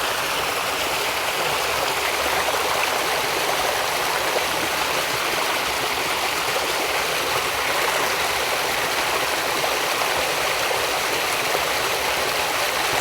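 Stream water running steadily, an even rushing hiss with no breaks.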